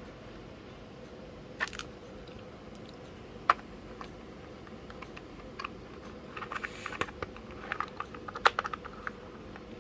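Plastic keycap packaging being handled and unpacked: scattered sharp clicks, the loudest about three and a half seconds in, then a quick run of small clicks and crinkles near the end.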